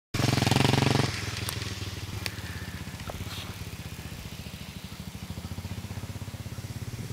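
1993 Suzuki DR650's single-cylinder four-stroke engine running with a fast, even pulse. It is loud for about the first second, then quieter and steady.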